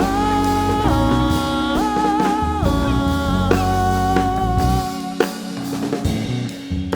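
A band playing, with drums and long held melody notes that slide between pitches over a bass line. The low end drops out about five seconds in.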